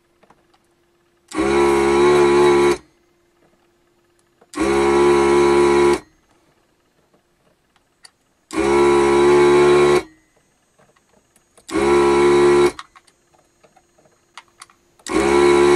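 ZD-985 desoldering station's vacuum pump running in short bursts as the desoldering gun sucks molten solder from connector pins: five bursts of about a second and a half each, starting and stopping abruptly, the last beginning near the end. A faint steady hum from the station carries on between the bursts.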